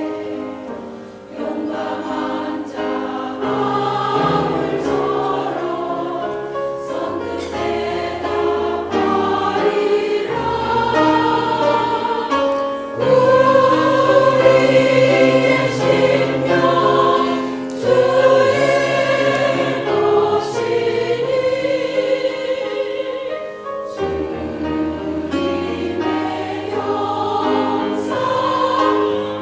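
A choir singing a slow hymn-like piece in several voice parts over a bass accompaniment.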